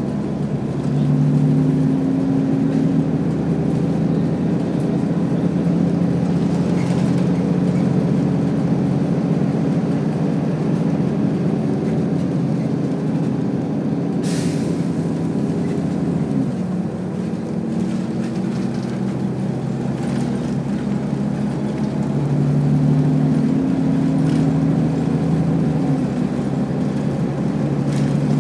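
Steady engine drone of a moving vehicle, its pitch shifting a few times as it goes, with a brief hiss about halfway through.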